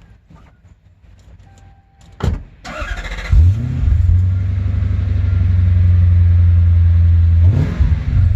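Car engine cold-started: after a short clunk, the starter cranks briefly about three seconds in, the engine catches with a flare and settles into a steady fast cold idle, with a brief rev rise and fall near the end. The exhaust is fairly subdued, through the stock catalytic converters and mufflers with only a Tanabe axle-back, a start the owner calls lame.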